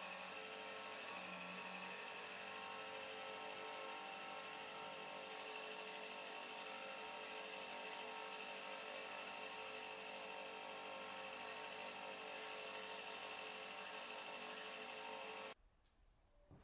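Belt grinder running with a wooden knife-sheath blank held against the belt: a steady motor whine under a sanding hiss that swells in stretches as the wood bears on the belt. It cuts off suddenly near the end.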